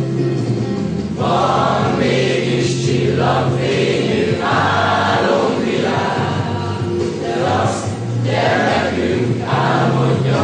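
A group of young men and women singing together in phrases, over steady instrumental accompaniment.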